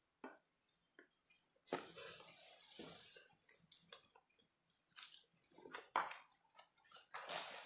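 Brown paper food wrapping rustling and crinkling as fried rice is scooped from it by hand, in two longer stretches about two seconds in and near the end, with scattered short clicks in between.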